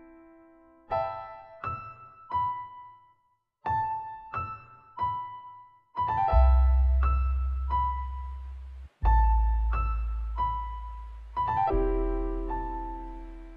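Background music: a slow keyboard melody of single struck notes that ring out and fade, joined about six seconds in by a deep sustained bass.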